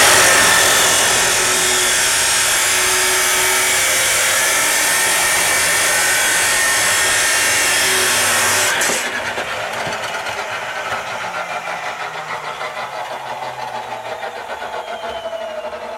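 Electric grinder working a stainless steel exhaust flange, a loud steady grinding noise. About nine seconds in it is switched off and winds down with a slowly falling whine.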